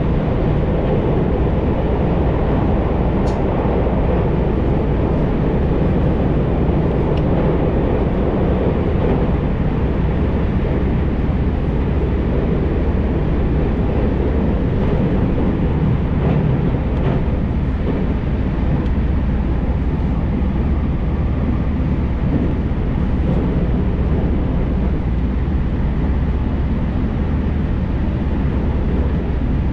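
Steady running noise of a JR Tokaido Main Line train heard from inside the passenger car: a low rumble of wheels on rails and the car's motors. It is heavier for the first several seconds while the train crosses a steel truss bridge over a river, then settles to plain-track running.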